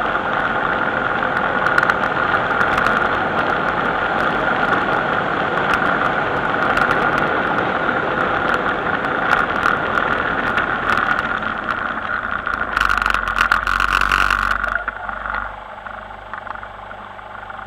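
Onboard sound of a road vehicle under way: steady engine and rushing wind noise, which drops off about fifteen seconds in as the vehicle comes to a stop, leaving a quieter idle.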